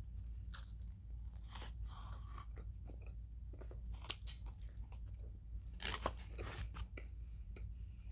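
A person biting into and chewing a McDonald's Quarter Pounder burger close to the microphone: irregular wet mouth clicks and smacks, busiest about six seconds in, over a steady low hum.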